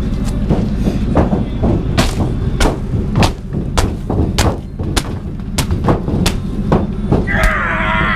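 Heavy boots stamping on a car windshield, a steady run of loud thuds about every half-second. Near the end, a man yells.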